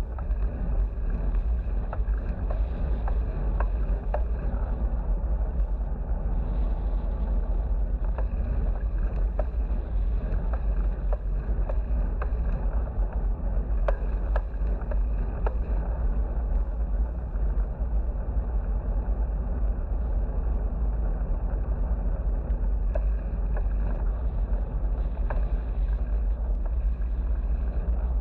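Steady low wind rumble buffeting an action camera's microphone while cycling along a highway, with a few faint ticks.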